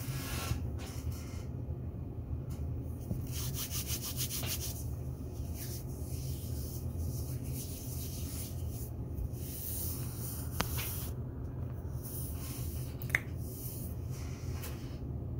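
Scratchy rubbing noises close to the microphone, coming and going every second or so, over a steady low hum. There is a sharp click about ten seconds in and a louder one near the end.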